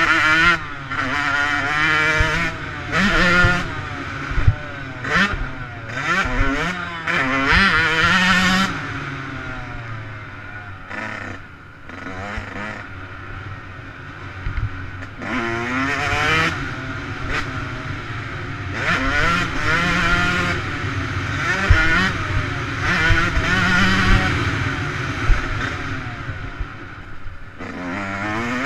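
Dirt bike engine heard on board, revving up and dropping back again and again as the rider shifts and works the throttle, with knocks from the bumps. The engine eases off and runs quieter for several seconds near the middle, then pulls hard again.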